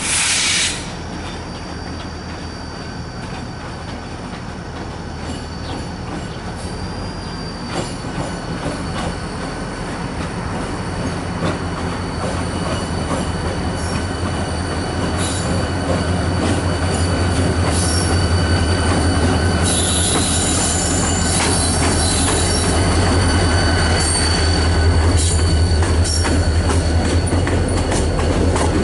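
Two EMD diesel locomotives running light, with no cars, approaching and passing close by: their engines' low steady drone grows steadily louder and is loudest near the end. A thin high wheel squeal and scattered wheel clicks on the rails run over it, with a short loud hiss in the first second.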